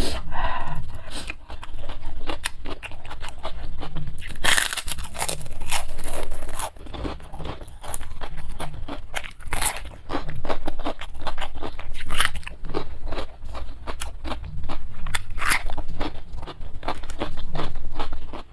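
Close-miked chewing of crunchy food, with a rapid run of sharp crunches and several louder crunching bites spread through.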